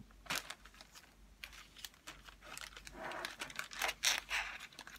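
Clear plastic zip-top bag crinkling and rustling as it is handled, with scattered sharp crackles, busiest about three to four and a half seconds in.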